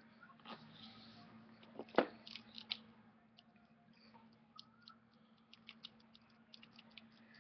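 Plastic wrestling action figures being handled on a wooden floor: a sharp knock about two seconds in, then a run of small, light, irregular clicks and taps as a figure is picked up and its limbs moved. A faint steady hum runs underneath.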